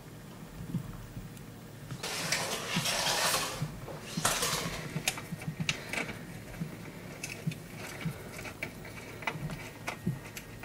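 Plastic venetian window blinds being handled and tilted open: a loud rustling burst about two seconds in, a shorter one just after, then a run of light clicks and knocks as the slats turn.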